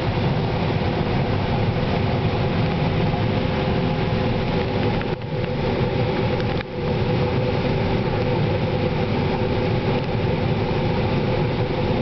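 A 1993 John Deere 9500 combine's diesel engine and threshing machinery running steadily under load while harvesting corn, heard inside the cab as a constant drone with a few steady hum tones. The sound dips briefly twice, about five and six and a half seconds in.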